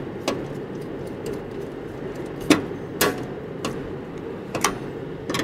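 A few scattered sharp clicks and knocks as a screwdriver and hands work on a voltage stabilizer's sheet-metal case and parts during reassembly.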